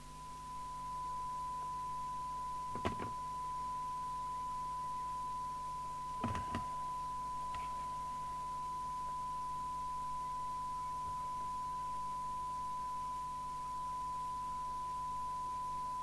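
Maxcom 30E FM CB radio receiving a test signal, its speaker giving a steady single-pitch test tone that comes up in the first second and holds, over a faint mains hum. Two brief clicks, about three and six seconds in.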